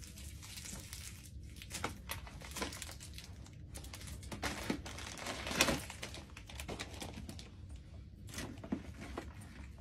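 Clear plastic packing wrap crinkling and rustling as it is pulled out of a leather tote bag, in irregular bursts with a few sharp crackles, loudest a little past the middle.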